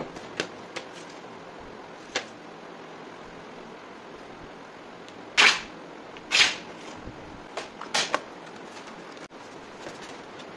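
Plywood pieces being handled on a wooden worktable: scattered knocks and short scrapes as boards are set down and slid. The two loudest come about five and a half and six and a half seconds in.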